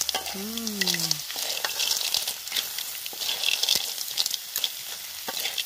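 Small snails (bangkang) in their shells sizzling in a hot wok with spices, stirred with a metal spatula; the shells and spatula click and scrape against the pan throughout. A short voice sound near the start.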